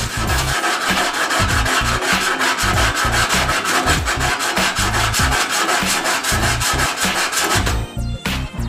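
Sandpaper rubbed by hand in quick back-and-forth strokes over the bare steel of a Vespa LX body panel, smoothing it after the dents were hammered out. The strokes stop a little before the end, over background music with a steady bass beat.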